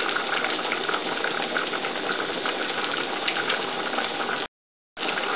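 Small patties frying in oil in a nonstick skillet on a gas burner: a steady sizzle that cuts out to silence for about half a second near the end.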